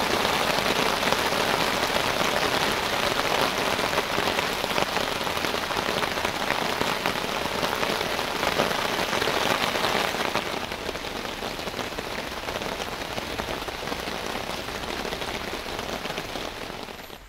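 Steady rain falling, a dense even hiss of drops; it eases slightly about ten seconds in and cuts off abruptly near the end.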